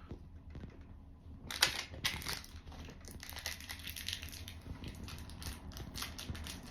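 Hands fitting a hard drive's mounting screw into a DVR's metal case: irregular clicks, scrapes and rattles of the screwdriver, screw and drive, with a louder pair of scrapes about a second and a half in.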